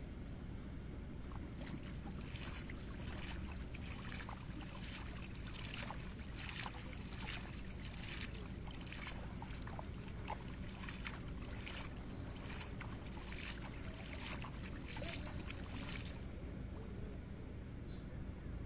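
Water splashing and sloshing in quick, irregular bursts as a hand fishing net is worked through shallow, weedy water, over a steady low rumble. The splashing stops a couple of seconds before the end.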